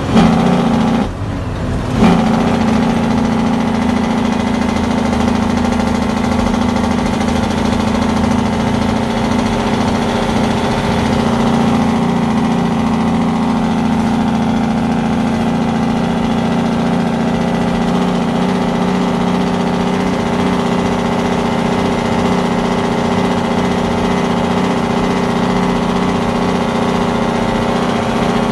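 Heavy diesel truck engine running steadily while driving, heard from inside the cab. Its sound dips briefly once about a second in, then holds an even drone.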